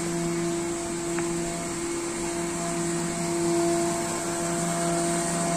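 Hydraulic ground power unit (hydraulic mule) running steadily, a low motor hum with a higher whine above it, a little louder near the end.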